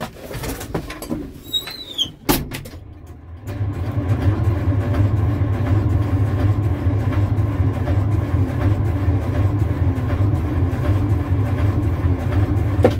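Starter motor cranking a cold-soaked 1972 Detroit Diesel 6V53 two-stroke diesel (engine at about 12°F, starter-fluid rags in the intake) for about nine seconds without it catching, then stopping abruptly near the end. A few clicks come before the cranking starts.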